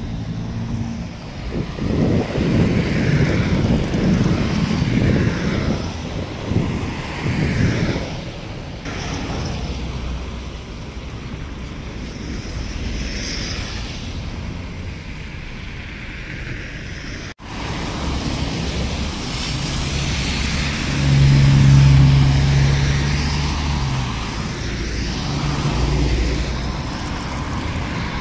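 Outdoor wind rumbling on the microphone in gusts, then, after a sudden break about two-thirds of the way in, road traffic with a vehicle engine passing by, loudest shortly after the break.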